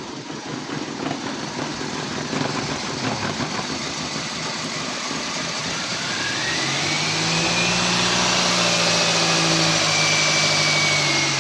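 2007 Toyota Corolla's four-cylinder engine running roughly just after starting, misfiring. About six seconds in it revs up with a rising whine, holds there, and eases slightly near the end.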